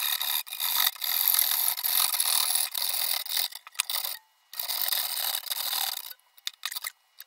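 Hacksaw cutting through a thin sheet-metal plate: a high rasping in back-and-forth strokes. It pauses briefly about four seconds in and stops about six seconds in, leaving a few light clicks.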